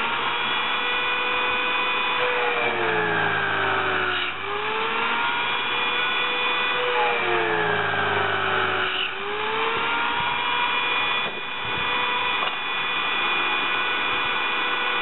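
Electric drill mounted in a drill-press stand, running continuously and drilling holes in metal fence plates. Its whine sags in pitch as the bit is pressed into the metal and bogs under load, with a low grinding rumble, then jumps back up when the pressure comes off. This happens about three times.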